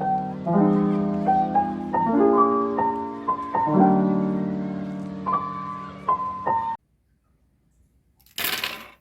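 Lofi piano background music that cuts off abruptly about two-thirds of the way through. After a short silence comes a brief burst of noise near the end.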